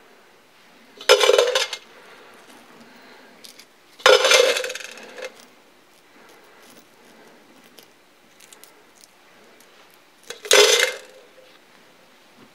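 Handfuls of small steel nuts and bolts clattering as they are dropped into a metal can, three times: about a second in, about four seconds in, and near the end. Faint clicks of the parts being handled in a rag come in between.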